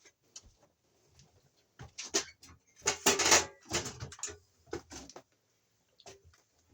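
Handling noises from working with electrical cable and tools: a string of irregular clicks and knocks, with a louder scraping rustle about three seconds in.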